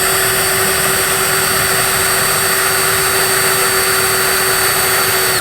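DeWalt drill running at a steady speed with a Neiko titanium step drill bit boring into wood: a steady motor whine over a dense cutting noise, stopping abruptly at the end.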